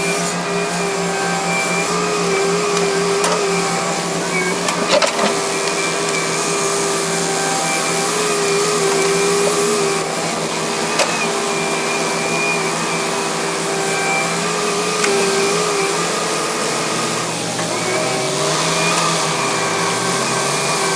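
Heavy construction machine, such as an excavator, running steadily with a diesel engine drone and a wavering whine, with a few sharp knocks. The engine note dips and recovers near the end.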